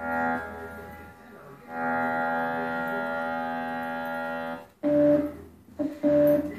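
Music: a long steady held note lasting about three seconds, then a short note repeating about once a second.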